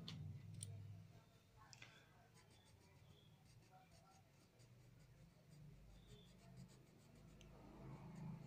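Faint scratching of a crayon colouring in on paper, in quick short strokes.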